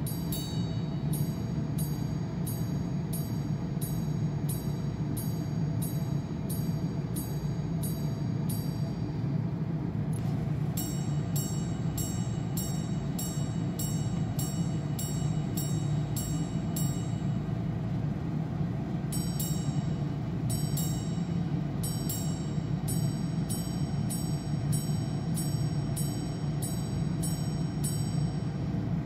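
Greubel Forsey Grande Sonnerie minute repeater chiming: its hammers strike the gongs in three runs of evenly spaced ringing strikes, about two a second, with short pauses between. A steady low hum sits underneath.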